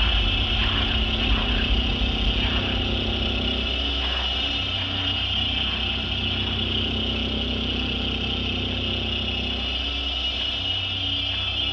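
Steady, dark electronic drone of a film soundtrack: a deep sustained hum under a dense, grainy upper layer, easing slightly in loudness a few seconds in.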